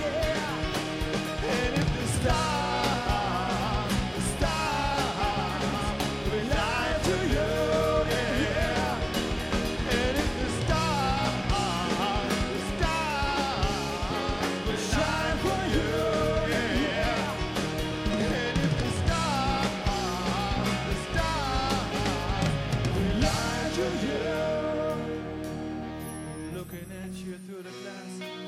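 A live rock band plays an instrumental break: electric guitar lead lines with bending notes over drums and bass. Near the end the drums and bass drop away, and the band falls to a soft, quieter passage.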